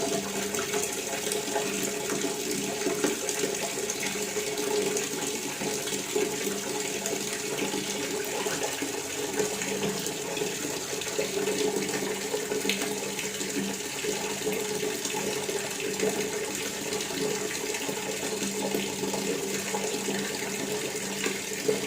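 Water tap running steadily, a continuous even splashing stream of water.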